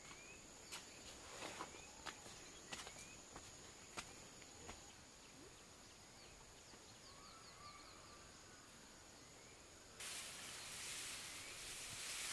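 Faint rural outdoor ambience: a steady high-pitched whine, scattered light clicks in the first few seconds and a few short rising chirps. About ten seconds in, a louder hiss sets in abruptly.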